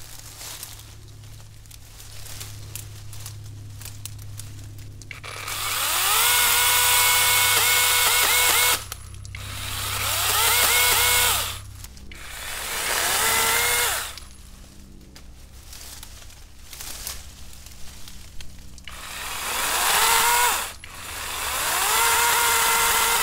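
A cordless 6-inch mini chainsaw with a brushless motor is triggered in five short bursts as it cuts through vines and small branches. Each time the motor whines up to speed, holds steady for one to three seconds, then cuts off sharply.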